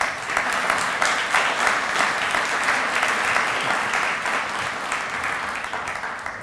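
Audience applauding, starting at once and slowly fading toward the end.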